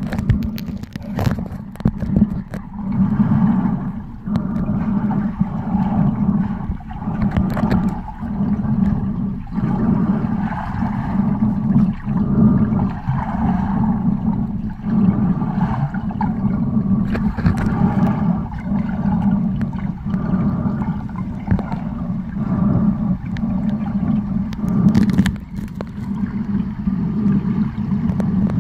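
Muffled underwater rumble from a camera held below the surface while snorkelling, with gurgling water and a pulsing swell about once a second.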